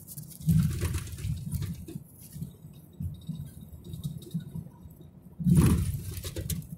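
Car cabin noise while driving over rough, patched pavement: irregular low thumps from the bumps, with rattling. Two heavy jolts come about half a second in and again near the end.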